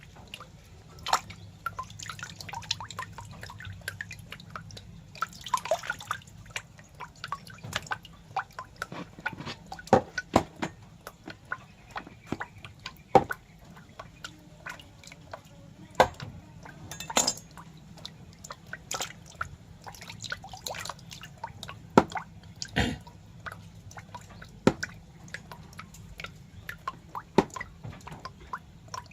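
Irregular wet clicks and drip-like ticks, spaced unevenly with a few sharper loud ones, over a faint low steady hum.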